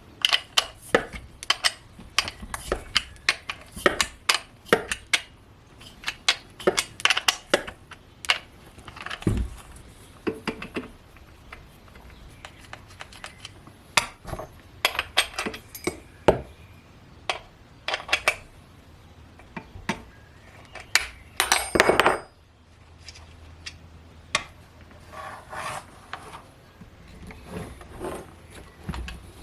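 Metal chainsaw parts and hand tools clinking and knocking in irregular clusters, handled during cleaning of the saw, with a short scraping burst about three quarters of the way through.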